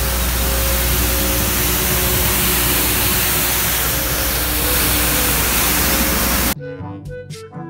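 Street sweeper running with its rotating side brooms sweeping cobblestones: a loud, steady rushing noise over a low engine rumble. It cuts off suddenly near the end, and music takes over.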